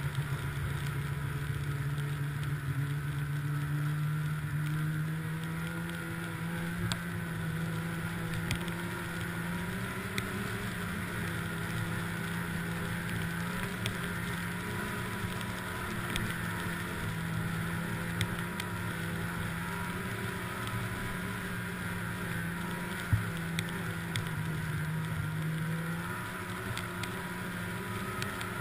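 Snowmobile engine running at a steady cruising speed while riding along the trail, a constant droning note. The note drops slightly near the end as the rider eases off, and a single sharp knock sounds about three-quarters of the way through.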